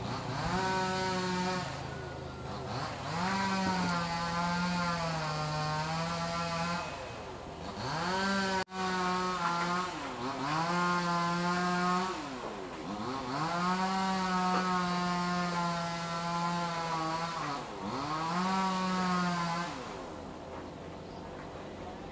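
An engine revved up, held at high speed and let back down about six times in a row, each rise and fall plainly heard as a glide in pitch.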